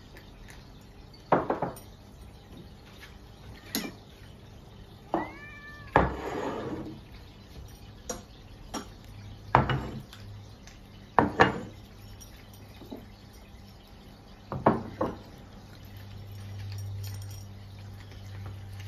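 Ceramic cat food bowls filled with dry kibble are set down and slid across a wooden table, giving about six short, sharp clunks spread out over the stretch. A cat meows once, about five seconds in.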